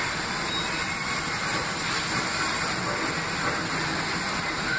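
New York City Subway R62-series train rolling along the platform of an underground station, with a steady rumble and hiss of its wheels on the rails.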